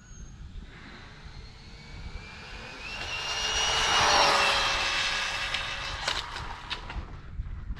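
Arrma Vendetta RC car's brushless motor and drivetrain whining at full throttle on a speed pass. The whine builds as the car approaches, is loudest about four seconds in, then fades with a slight drop in pitch as it goes past. A few sharp ticks come near the end.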